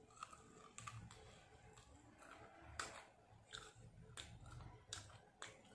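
Chewing a mouthful of crunchy roast chicken glazed in Korean-style sauce close to the microphone: a string of faint, sharp mouth clicks and crunches, roughly one or two a second.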